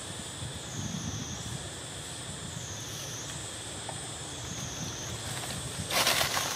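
Outdoor ambience dominated by a high insect drone that swells and dips about every second and a half, with a brief burst of rustling near the end.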